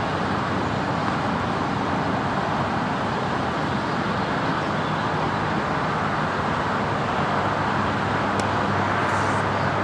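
Steady outdoor background noise with a faint low hum, and one sharp pop of a tennis racket hitting the ball on a serve about eight seconds in.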